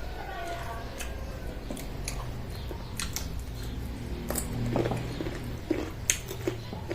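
Close-up eating sounds: chewing, with short wet clicks and smacks of the mouth on pork and greens. A rooster's crow trails off about half a second in.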